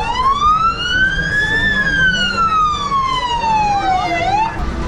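Emergency vehicle siren wailing once: the pitch rises over about a second and a half, then falls slowly for about two and a half seconds, then gives a short upward chirp and cuts off.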